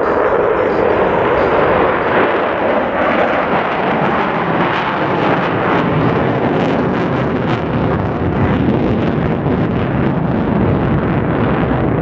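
Loud roar of a Blue Angels F/A-18 Super Hornet's twin jet engines flying a demonstration pass, with a crackling edge through the middle seconds.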